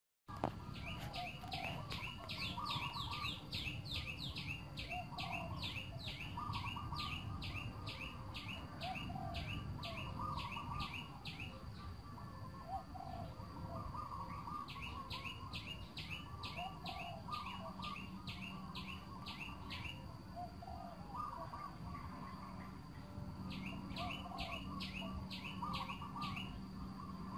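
Birds calling in a flooded forest: runs of rapid, repeated high chirps at about four a second, starting and stopping three times, over lower warbling calls and a low background of outdoor noise.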